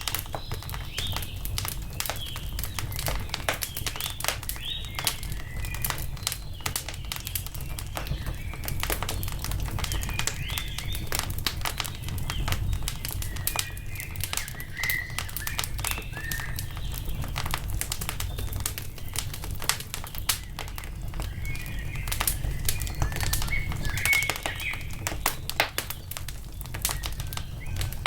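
Wood fire crackling and popping over a low rumble, with small birds chirping on and off.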